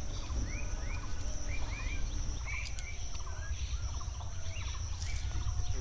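Outdoor ambience: small birds chirping with many short, quick calls, over a steady high-pitched insect drone and a low rumble.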